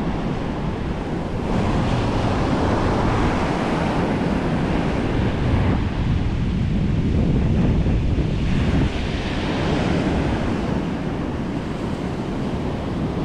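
Ocean surf breaking on a sandy beach, a steady wash that swells and eases as waves come in, with wind buffeting the microphone.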